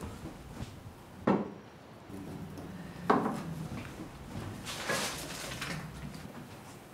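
Household items being handled and put away in kitchen cupboards: two sharp knocks, about one second and three seconds in, and a longer handling noise around five seconds in.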